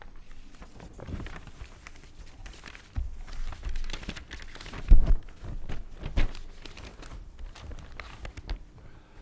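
Papers rustling and being handled close to a podium microphone, with several dull thumps, the loudest about five seconds in.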